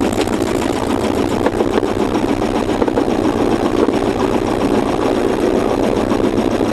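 A sailboat's engine running steadily at a constant speed, a dense, even drone with a fast rhythm.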